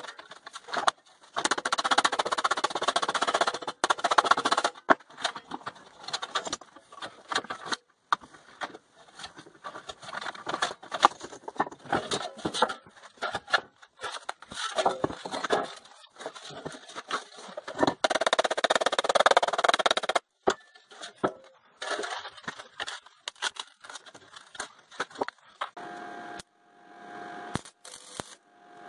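Hammer blows on sheet steel clamped in a bench vise, struck through a wooden block to bend it, coming thick and irregular. Near the end an arc welder runs with a steady sizzle.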